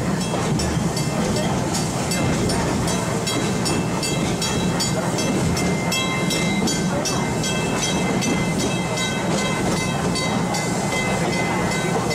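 Steam train running, heard from an open passenger car: steady rumble of wheels on rails with a fast, even clatter at about four a second, and thin high squealing tones that come and go.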